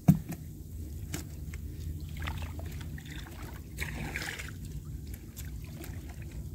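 Water sloshing and splashing around a person wading waist-deep while handling a fishing net, over a steady low rumble, with a sharp knock right at the start and a brief louder splash about four seconds in.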